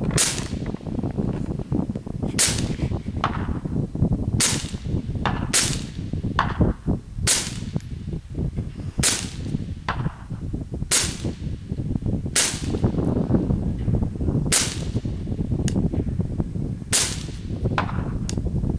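Suppressed LWRC M6A5 SPR 5.56 rifle firing single shots about every two seconds, ten in all, through a YHM Phantom suppressor. A fainter crack follows a few of the shots.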